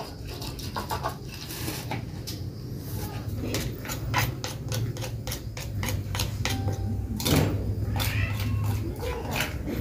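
A stone pestle (ulekan) grinding chilies in a stone mortar (cobek): a run of quick knocks and scrapes, at times about four a second, over a steady low hum.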